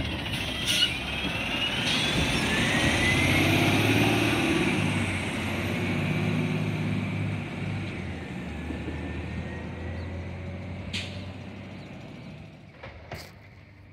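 Natural-gas-powered Waste Management garbage truck driving past and pulling away. Its engine builds in pitch with a rising whine over the first few seconds, is loudest about four seconds in, then fades steadily as the truck recedes.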